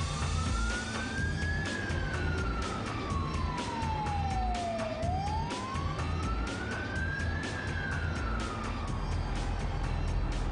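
A fire engine's siren wailing, its pitch rising and falling slowly twice, the second fall fading out near the end.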